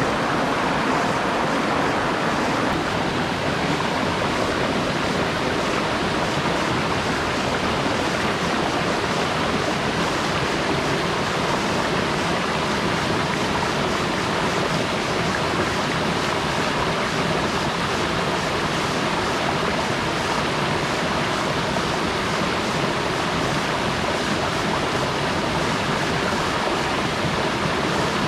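Rocky stream rushing over boulders and small cascades: a steady, unbroken rush of water.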